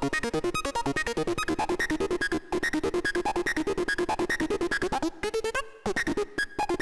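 Kassutronics VCO 3340 analog oscillator in a Eurorack synthesizer patch, playing a fast sequenced run of short pitched synth notes, about ten a second, with a brief pause about five seconds in.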